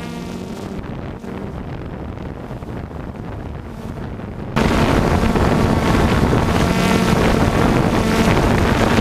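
Quadcopter drone (DJI Phantom 2) motors and propellers whirring with a steady hum, heard from the camera mounted on it. About halfway in, wind rush on the microphone suddenly grows much louder over the hum.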